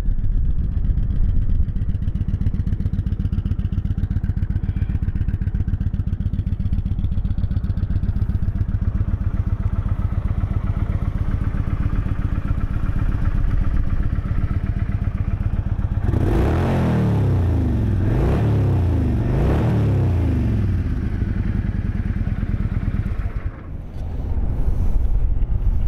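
2010 Kawasaki Vulcan 900 Classic's fuel-injected, liquid-cooled 900cc V-twin idling smoothly, revved up and back down a few times about two-thirds of the way through, then settling back to idle.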